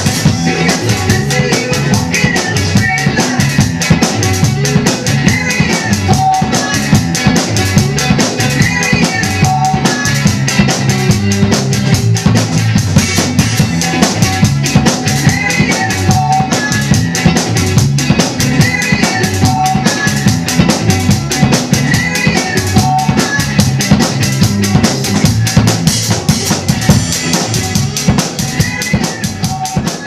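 Acoustic drum kit played fast and busy, with bass drum, snare and cymbals, over the original band recording of an upbeat rock song, fading out near the end.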